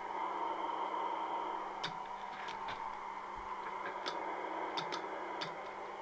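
Receive audio from an Icom IC-745 HF transceiver tuned on the 80 m band: steady band-noise hiss with a faint steady tone and a few scattered sharp clicks. No mains hum is heard, which shows the receiver is free of the humming problem.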